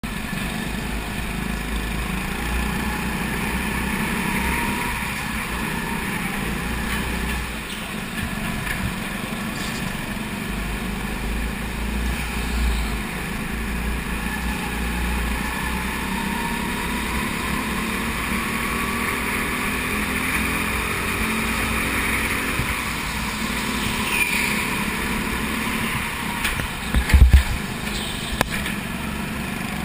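Onboard sound of an indoor rental kart racing, its small engine note rising and falling with the throttle through the corners, over a heavy low rumble, with other karts' engines around it. A few sharp knocks sound close together about 27 seconds in.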